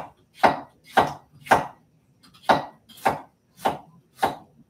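Chef's knife slicing kohlrabi thin on a wooden cutting board, each cut ending in a sharp knock of the blade on the wood. There are eight cuts at about two a second, with one short pause near the middle.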